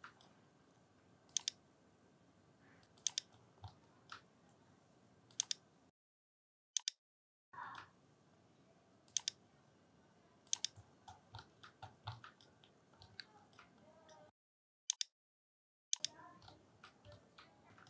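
Sharp, isolated clicks of a computer mouse and keyboard, one every second or two, with a few softer ticks between them over a faint hiss; the sound cuts to dead silence twice.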